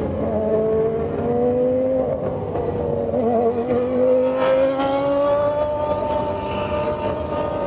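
Naturally aspirated 3-litre Formula One engines of 1995 running at high revs on track. The engine notes climb slowly in pitch, wavering briefly about three seconds in and changing pitch again around the middle.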